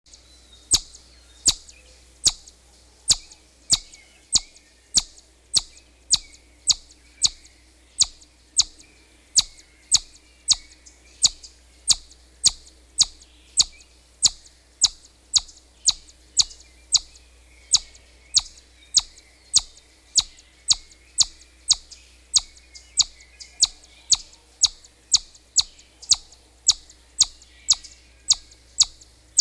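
Chipmunk calling with a long, evenly spaced series of short, sharp, high chips, about three every two seconds.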